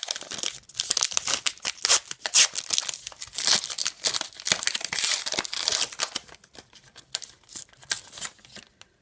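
Foil wrapper of an O-Pee-Chee hockey card pack being torn open and crinkled, a dense crackling that dies away shortly before the end.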